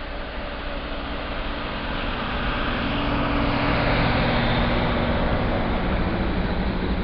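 PKP class SU42 diesel locomotive passing close by with its train, its steady engine note growing louder. The double-deck coaches then roll past behind it, loudest about four seconds in.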